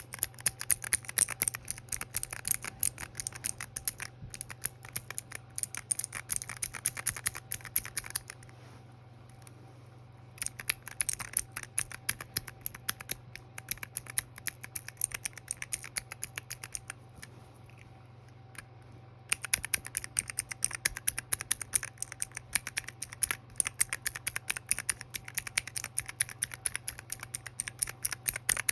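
Clickeez keycap fidget clickers being pressed over and over in fast runs of sharp clacks, stopping twice for a second or two, over a faint steady hum.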